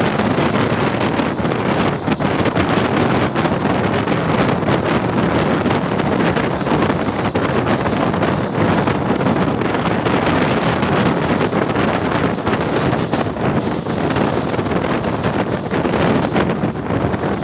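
Running noise of an ICF passenger coach travelling at speed: a steady rush and rumble from the wheels and track with light clatter, and wind buffeting the microphone, as from an open door or window.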